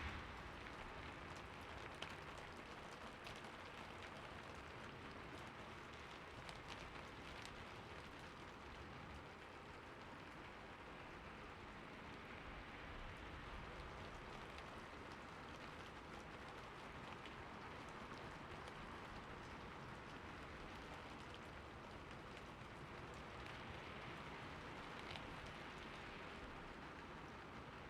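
Soft, steady rain: an even hiss with scattered faint ticks of single drops.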